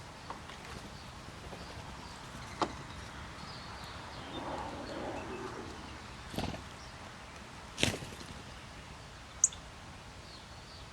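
Backyard birds calling faintly over a steady outdoor hiss, broken by three sharp knocks spread through the middle and a single loud, high chip call near the end.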